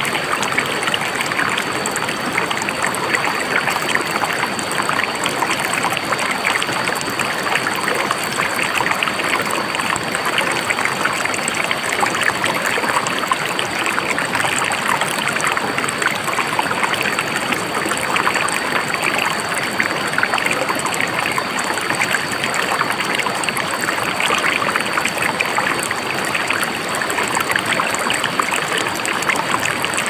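Spring-fed forest stream flowing steadily, a constant trickling babble of water.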